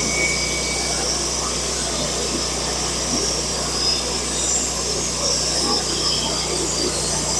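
Band sawmill running steadily, its blade cutting through a knotty pine log under a constant engine hum.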